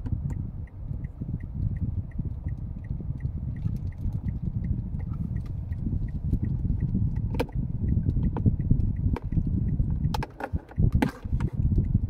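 Steady low rumble inside the cabin of a Mitsubishi Xpander. A faint high tick repeats about four times a second, and a few sharp clicks come from the dashboard climate-control buttons being pressed in the second half.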